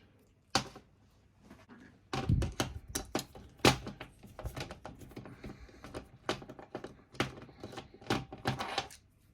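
Irregular sharp metallic clicks and knocks from an ABUS 83AL/45 padlock being taken apart by hand after picking, tools and lock parts tapping and clacking against each other. A single knock comes about half a second in, then the clicking turns busy from about two seconds on.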